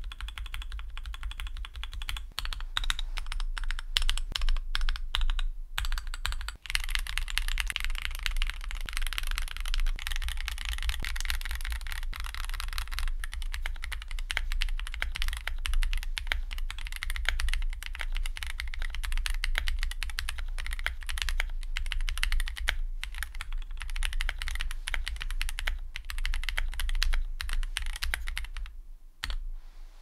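Fast, continuous typing on an Akko ACR Pro 75 mechanical keyboard. It is built with a polycarbonate plate, full-length gaskets, case foam, hand-lubed Akko CS Jelly Black linear switches and lubed stabilizers, the spacebar holee-modded. The typing stops shortly before the end.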